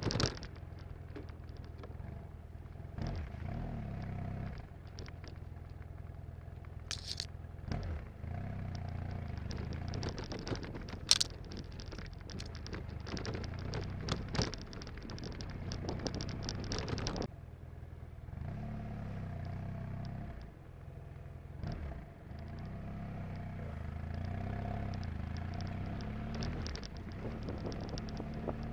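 Motorcycle engine running at low speed over a rough, muddy dirt track, the throttle opening and easing off in spells, with wind rustle on the bike-mounted camera's microphone and scattered sharp crackles and knocks, the loudest about eleven seconds in.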